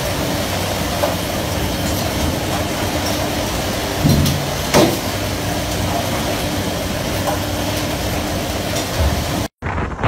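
Steady drone of a fishing trawler's engines and deck machinery with a constant low hum, and two loud knocks less than a second apart about halfway through. Near the end it cuts out for an instant and gives way to wind.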